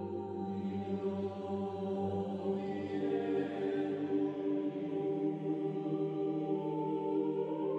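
Background music: slow, long-held chords with a chant-like, choral quality, moving to a new chord every couple of seconds.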